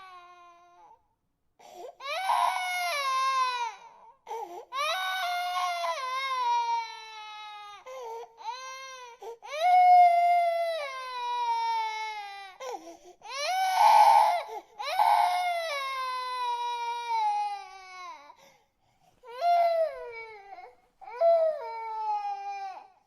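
Infant crying hard: a run of wailing cries, each one to two seconds long and falling in pitch, with short breaks between them.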